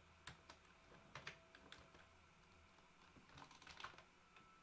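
Faint keystrokes on a computer keyboard: a few scattered key presses, then a quick run of them about three and a half seconds in.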